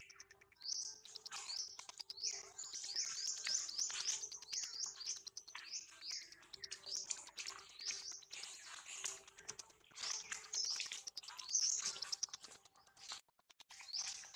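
A rapid series of short, high-pitched chirping calls, about three a second, that break off briefly near the end and then resume.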